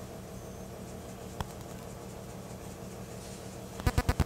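Steady low kitchen hum with one light tap about a second and a half in, then a quick run of sharp clicks near the end as something knocks against the sauce pan at the stove.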